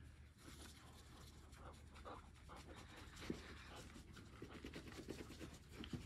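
Near silence: faint rustling and soft scattered clicks of a hand scratching a dog's fur.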